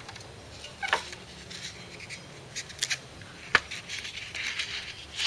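Thin plastic film sheets of an LCD backlight being peeled up by hand: light rustling with scattered sharp clicks and crackles, the sharpest about a second in and about three and a half seconds in.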